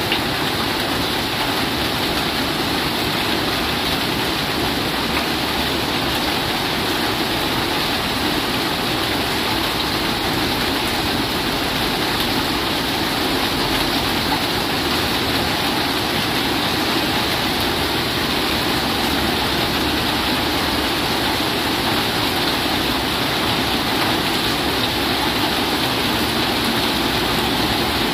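Steady heavy rain drumming on a corrugated roof and falling on a flooded rice paddy, with water pouring off the roof's edge.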